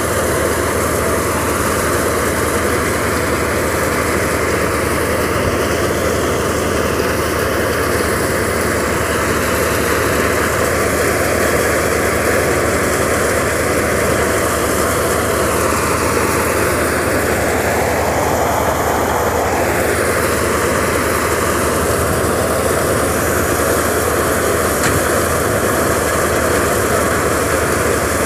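Tractor-driven threshing machine running steadily while chickpea plants are fed into it. The tractor engine and the thresher's drum make one loud, even mechanical noise, whose tone shifts briefly a little past the middle.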